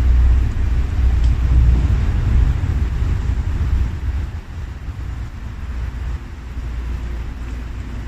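A low, loud rumble that is strongest in the first half and dies down after about four seconds.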